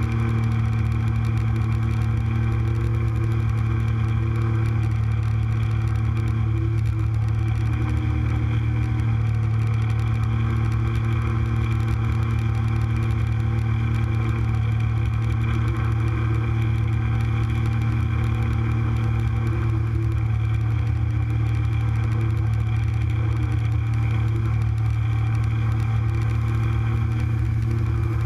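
Speedboat engine running steadily at cruising speed with an unchanging pitch, with water rushing along the hull as the boat runs under way.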